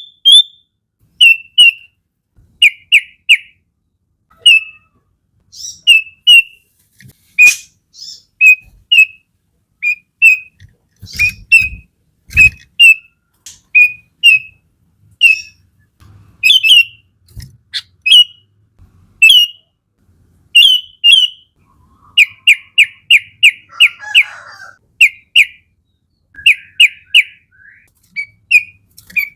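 Sooty-headed bulbul (kutilang) calling in sharp, loud whistled notes, in singles, pairs and quick runs of five or six. About two-thirds of the way through comes a short harsh rasp. Near the middle there are a few faint low thumps.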